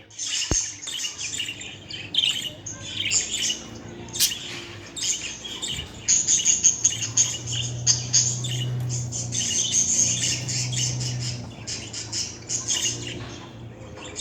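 Budgerigar warbling and chirping in a fast, continuous chatter with squawky notes mixed in. This is the steady song of a budgie.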